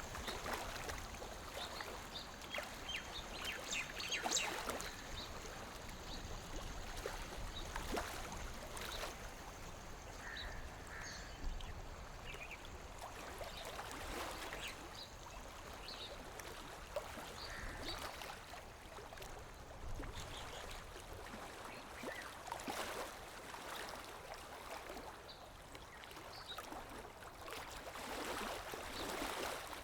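Lake water lapping gently against the shore in small, irregular splashes.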